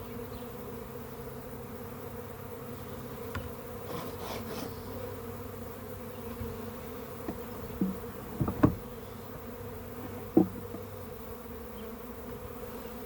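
Honey bee swarm buzzing: a steady, close hum of many bees. A few short knocks sound over it in the second half.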